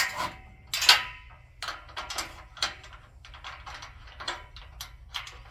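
Metal clinks and clicks as a bracket is worked into place between two metal motorcycle loading ramps: a sharp knock about a second in, then a run of lighter, irregular taps.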